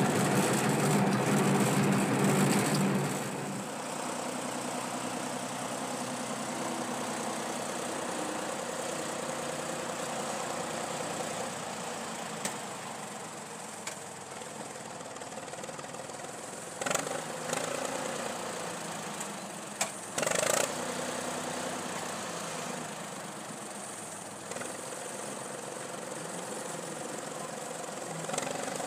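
Old farm tractor engine running, loud and close for about three seconds, then heard from further off as the tractor works a towed earth scoop. A few brief knocks stand out around the middle.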